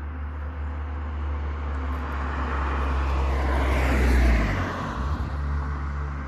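A road vehicle driving past, its engine and tyre noise growing to a peak about four seconds in and then fading away.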